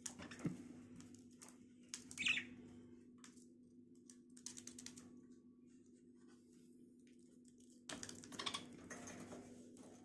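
Budgerigars moving about a wire cage: light clicks and scratches of beaks and feet, a short chirp about two seconds in, and a flurry of wing flaps near the end.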